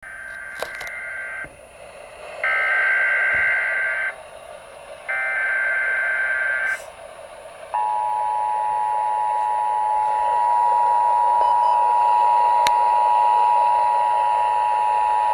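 Emergency Alert System activation tones received over AM radio: three bursts of SAME header data tones, each under two seconds, then, about eight seconds in, the steady two-tone attention signal that opens an alert broadcast, here a flood watch. A constant hiss of radio noise lies under the tones.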